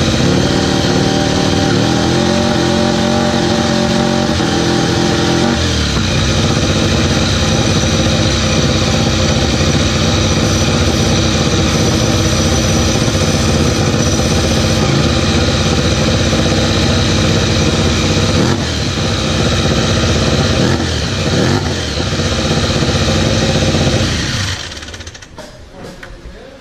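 Ducati Desmosedici MotoGP V4 engine warming up with the bike on its paddock stand: it runs at a held, raised idle that steps up in revs a few times over the first several seconds, has a few short rises in revs later, and is shut off near the end.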